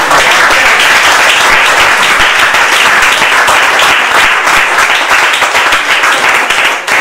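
Audience applauding, a dense, steady patter of many hands clapping together.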